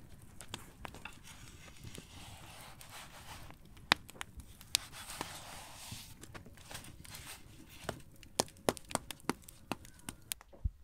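Soft rustling and sliding as flatbread dough is lifted and turned on a floured iron saj griddle, with scattered sharp clicks; in the last few seconds comes a quick run of sharp clicks, about three or four a second.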